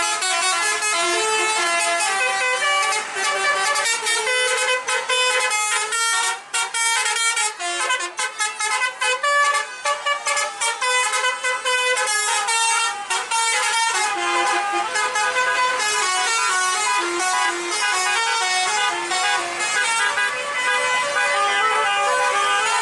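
Several tour buses' basuri telolet air horns playing melodic tunes over one another, stepping from note to note almost without pause; from about six seconds in, the notes come as short, quick toots for several seconds.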